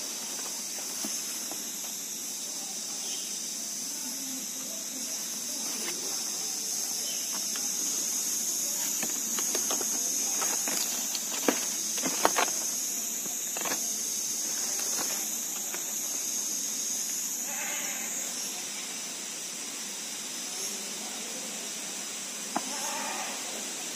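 Outdoor garden ambience: a steady high-pitched hiss throughout, a few sharp knocks about halfway through, and short animal calls near the end.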